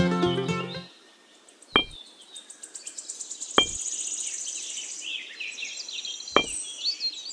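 Miniature clay bricks set down one by one: three sharp clicks, well spaced, over steady high chirping. Background music cuts off about a second in.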